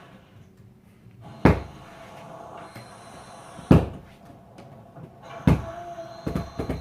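A series of sharp bangs, like a cupboard door being shut, about two seconds apart, then a quicker run of smaller knocks near the end.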